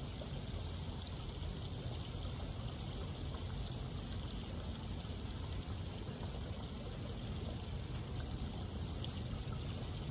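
Steady splashing and trickling of a garden fountain falling into a pool, an even water noise that does not change.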